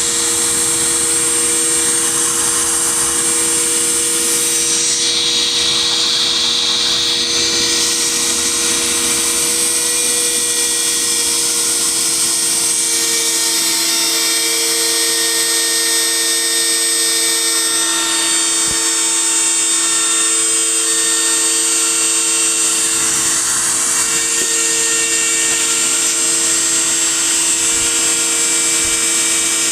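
CNC PCB milling machine's spindle motor running steadily with a high whine as it cuts a circuit board, with a brighter, hissier stretch about five to eight seconds in.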